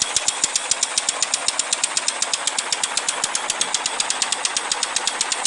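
Model sliding-vane rotary engine running steadily: a throaty, rapid and even exhaust chuffing, about eight beats a second, over a constant hiss of escaping working gas.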